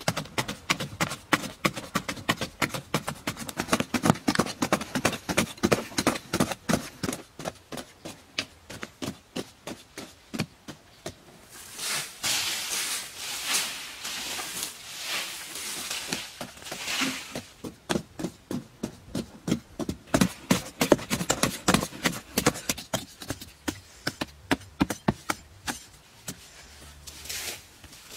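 Hand hoes chopping into hard, dry earth in quick, uneven strokes, two diggers at once. About twelve seconds in, and again later, come scraping and hissing stretches as the loosened dirt is scraped up and flung aside.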